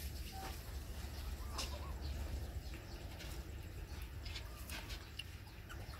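Puppies nursing from their mother: a few faint short squeaks and scattered small clicks over a low steady rumble.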